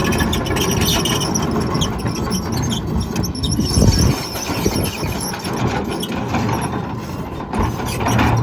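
John Deere 210G LC hydraulic excavator running under load, with intermittent high-pitched squeals over the diesel and hydraulic noise. There is a heavy thump about four seconds in.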